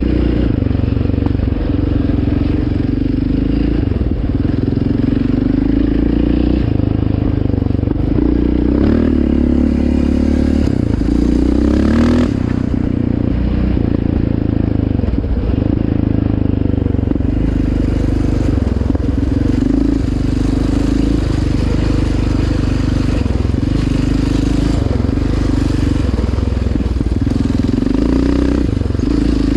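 Yamaha Raptor 700R quad's single-cylinder four-stroke engine running while riding, its note rising and falling with the throttle. There is a sharp knock about twelve seconds in.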